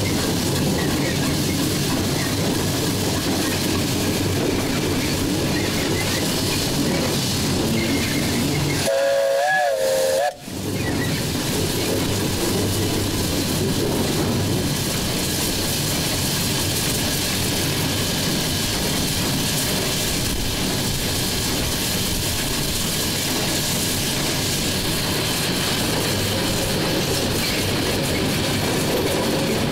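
Steady steam hiss and running noise in the cab of a 1943 Davenport-built USATC steam locomotive. About nine seconds in there is a short pitched tone, and the sound cuts out for an instant just after.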